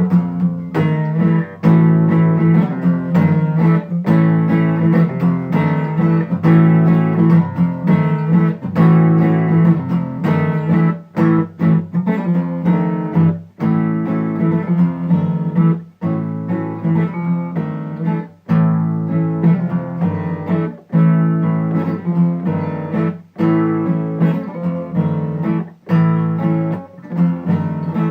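Guitar strumming chords, with no singing.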